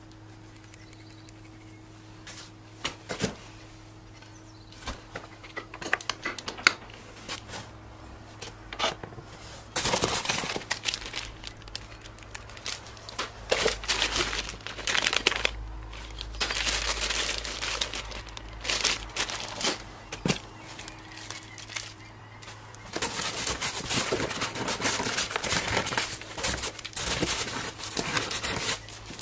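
Plastic packaging bags crinkling and rustling as small parts are unpacked and handled, dense for long stretches, with scattered light clicks and knocks of small parts in the first few seconds. A faint steady hum runs underneath.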